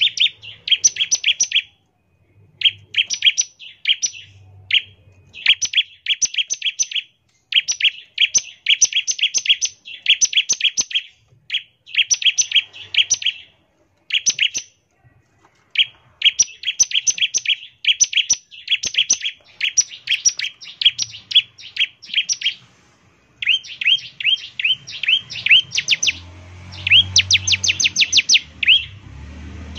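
Bar-winged prinia (ciblek) singing its fast 'ngebren' song: bursts of sharp, rapidly repeated chirps, about ten a second, each burst a second or two long with short pauses between. A faint low rumble lies under the song near the end.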